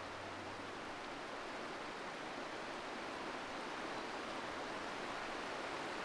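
Shallow rocky stream rushing over stones: a steady hiss of running water that grows slightly louder.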